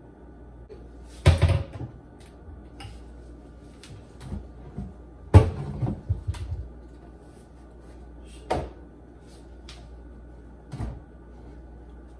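Kitchen cabinet doors opening and shutting and things being moved on the shelves: four sharp knocks with some clatter after them. The loudest knock comes about five seconds in.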